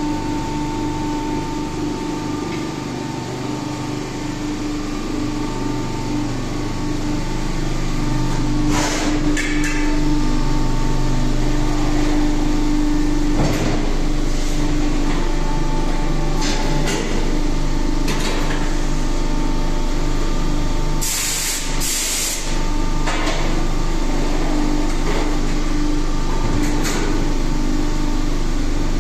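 Hidroteknik HTME 100 injection die-casting machine running with a steady hum, with a few sharp metallic knocks at irregular moments and a loud hiss lasting a second or two just past the middle.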